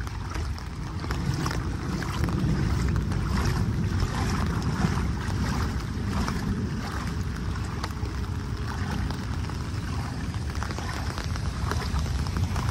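Wind buffeting the microphone over a steady wash of rain and floodwater, with many small irregular splashes.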